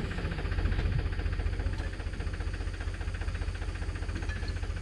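Tractor's diesel engine running steadily at low revs, a fast, even low chugging throb.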